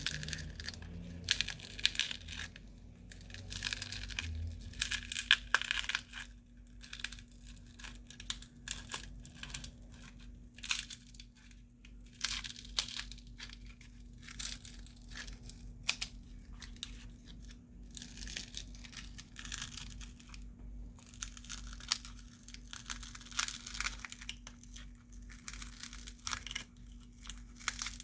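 Adhesive and cracked screen glass of a Samsung Galaxy A20 crackling, crunching and tearing as a pry tool is worked under the heat-softened display to lift it from the frame. The snaps and crackles come irregularly, with short quieter gaps, over a steady faint low hum.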